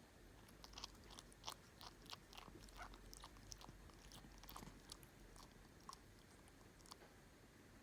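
Faint, irregular little clicks and smacks, two or three a second, from a sleeping cat's mouth as it dreams.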